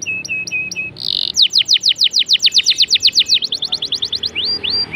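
Domestic canary singing loudly in full song. A few short flat whistles are followed, about a second in, by a fast run of falling sweeps at about eight a second, then a quicker twitter and three rising whistles near the end.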